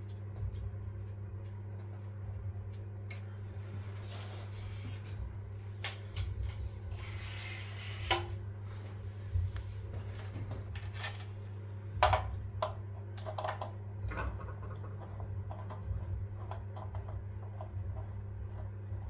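Handling noise from a metal DRO linear scale being held and slid against a milling machine's cast-iron column: scattered clicks and rubbing scrapes, with two sharper knocks about eight and twelve seconds in, over a steady low hum.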